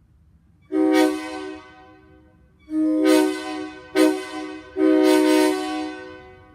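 Locomotive air horn blown in four blasts, long, long, short, long: the grade-crossing signal.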